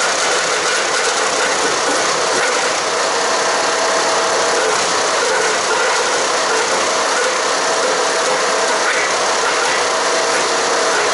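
Haige 15-horsepower wood chipper running steadily at speed, a loud, even mechanical din.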